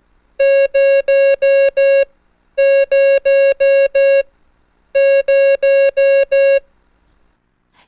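Morse code tone sending the digit zero, five dashes (dah-dah-dah-dah-dah), three times over. Each group is five long beeps at one steady pitch, with a pause of about half a second between groups.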